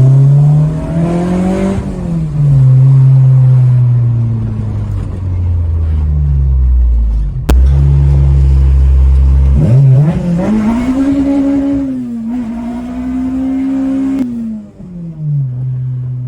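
Acura RSX's swapped K24 four-cylinder engine pulling through the gears on a newly fitted clutch: the revs climb, fall at a shift about two seconds in, climb again steeply about ten seconds in and drop back near the end. A single sharp click halfway through.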